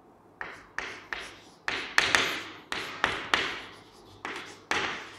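Chalk writing on a chalkboard: a run of irregular sharp taps, each followed by a short scratchy stroke, starting about half a second in.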